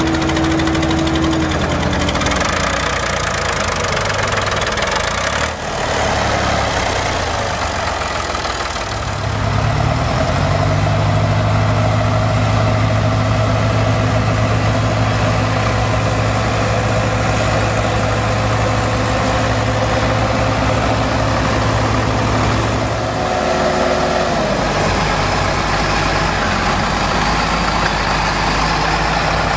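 Farm tractor engines running under load as the tractors churn their wheels through deep mud. The engine note changes abruptly about five seconds in and again near 23 seconds, with a steady low hum in between.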